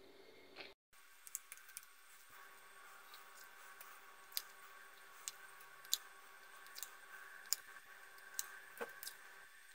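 Faint, irregular light clicks and taps of a plastic spoon against a glass bowl and thin disposable plastic cups as gelatin cubes are scooped and dropped in, over a faint steady hum.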